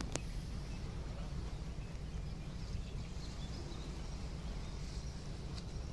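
Steady low rumble on board a river ferry under way on the Danube, with one sharp click just after the start and a few faint high chirps.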